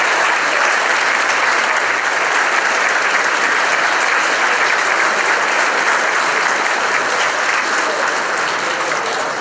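A large audience applauding, a dense, steady clapping that begins to ease off near the end.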